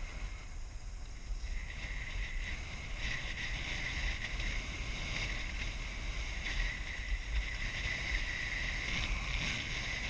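Skis scraping and sliding over groomed snow during a downhill run, with wind rumbling on the microphone. The scraping grows louder about a second and a half in.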